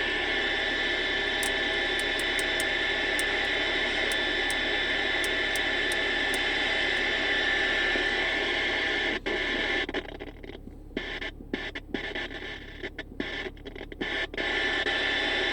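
TriStar 790DX CB radio receiving, its speaker giving a steady hiss of band static. About ten seconds in, the static turns choppy, dropping out and coming back in quick gaps for a few seconds before it steadies again.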